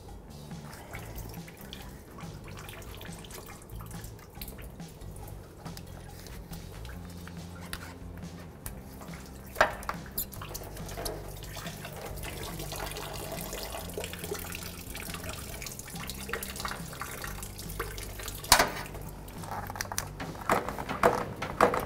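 Engine coolant trickling and dripping from the radiator into a drain bucket. Sharp clicks and scrapes of a tool prying the lower radiator hose loose come about 10 s in, again near 19 s, and in a quick cluster at the end, the loudest sounds here.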